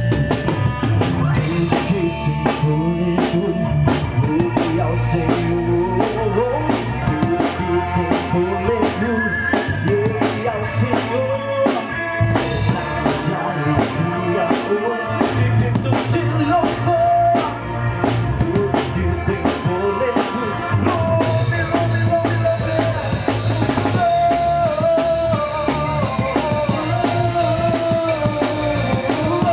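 Worship band playing with a drum kit keeping a steady beat under a melodic lead line.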